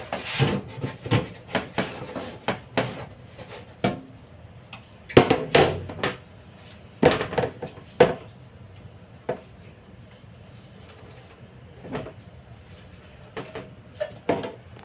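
Dishes and food containers being handled and set down: irregular clattering knocks and clinks, busiest in the first few seconds and again around the middle, then a few scattered knocks.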